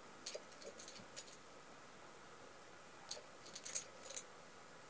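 Faint, short high-pitched clicks and ticks of small glassware as isoamyl acetate is dripped from a small bottle into a glass beaker on a digital scale. They come in two clusters, one near the start and another about three seconds in.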